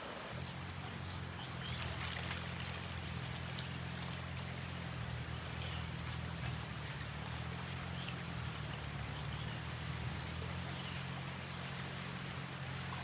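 Small motor starts humming about half a second in and runs steadily, over a wash of water noise with scattered light clicks.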